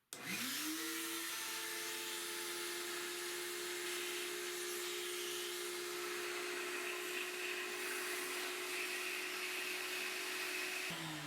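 Shop vac switched on, its motor spinning up with a quickly rising whine, then running steadily; it is switched off near the end and winds down.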